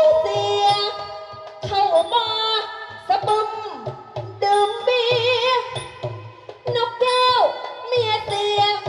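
A singer sings a melodic, wavering song with vibrato into a microphone over amplified backing music with a steady beat.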